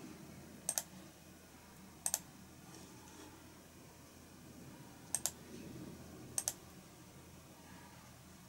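Computer clicks, sharp and in quick pairs, four times over a faint room hum.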